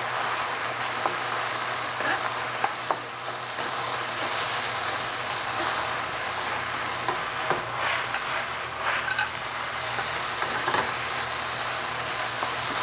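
Chicken, peanuts and green onions sizzling in a wok while a wooden spatula stirs and tosses them, with a few short clicks and scrapes of the spatula against the pan.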